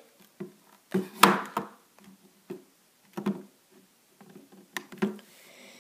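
Handling noise from a Samsung HD camcorder being moved about by hand: a string of light knocks and clicks, about seven, the loudest a little over a second in.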